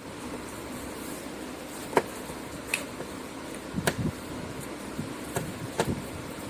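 Steady background hiss with about five sharp clicks and a few soft low knocks scattered through it, typical of light handling of tools or parts.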